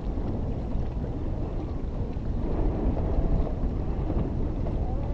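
Wind buffeting the microphone on an open boat: a steady, churning low rumble.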